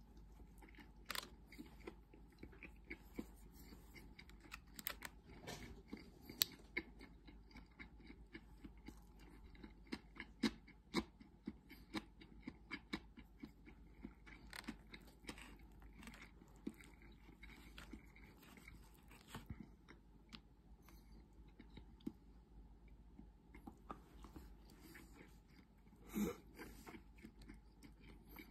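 Close-up eating sounds: soft chewing of a clam-and-rice bento, with many small sharp clicks of wooden chopsticks against the plastic tray. A brief louder noise comes about two seconds before the end.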